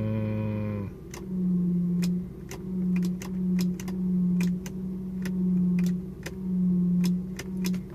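Lexus SC400's low droning hum heard inside the car, cutting in and out in swells, over a steady rumble and a run of sharp ticks about two or three a second. The owner rules out the power steering and suspects the alternator working harder or a transmission mount.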